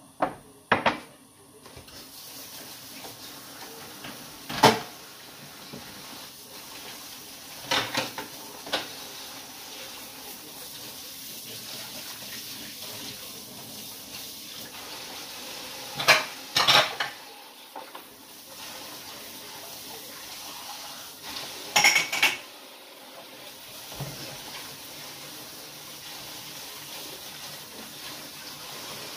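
Dishes and cutlery being washed at a kitchen sink: scattered sharp clinks and clatters of crockery and metal, over a steady rush of running tap water.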